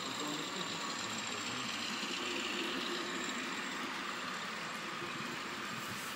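N scale Dapol Class 50 model locomotives' sound decoders playing a steady diesel engine sound through their small onboard speakers while the models run along the track.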